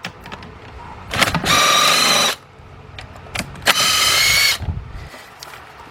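Cordless impact driver with a 10mm socket spinning out valve cover bolts, running in two bursts of about a second each with a steady motor whine. Small clicks and rattles of bolts and socket fall between the bursts.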